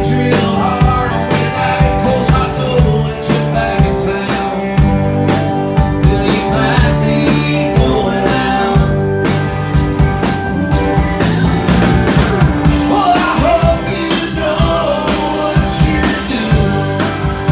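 Live band music: drum kit beat, electric bass, strummed acoustic guitar and keyboard, with a man's lead vocal singing over it in several phrases.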